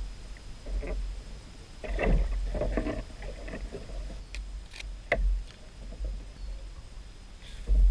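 Scattered knocks, clicks and rubbing on a plastic fishing kayak as a caught red drum is handled, over a low rumble. A cluster of clatter comes about two to three seconds in, a sharp click about five seconds in, and a louder thump near the end.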